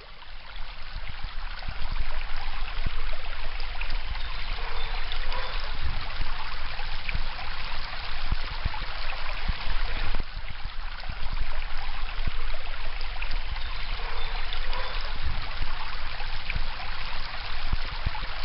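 Shallow stream flowing and trickling over stones, a steady rushing of water that fades in over the first couple of seconds. A low, uneven rumble runs underneath.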